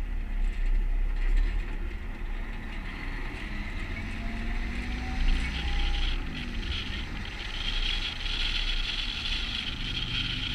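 Volvo FH16 700 truck on the move: its 16-litre straight-six engine sets up a steady low drone under tyre and road noise, with a brighter hiss coming up about two-thirds of the way through.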